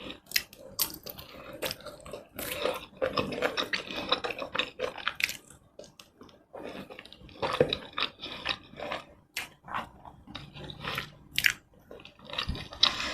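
Close-miked eating sounds: a person chewing and smacking while eating tomato rice with chicken in red sauce, with many irregular wet clicks and smacks.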